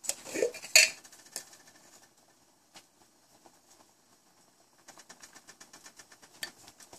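Light kitchen handling sounds while garam masala is added to a simmering tomato and curd gravy in a small pan: a few short knocks and clatter in the first second, then a run of rapid faint ticks from about five seconds in.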